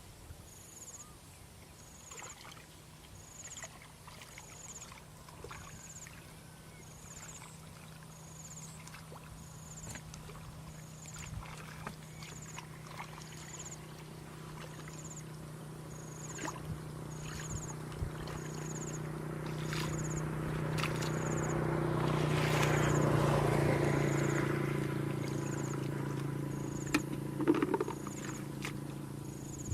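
A low motor hum, as of a passing small engine, grows louder to a peak about two-thirds of the way in, then eases off. A short high chirp repeats about once a second throughout, with a few scattered knocks.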